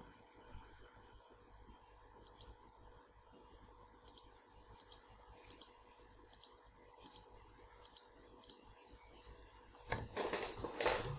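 Computer mouse clicking: a string of short, sharp clicks, many in quick pairs, about one a second. Near the end a louder rushing noise comes in.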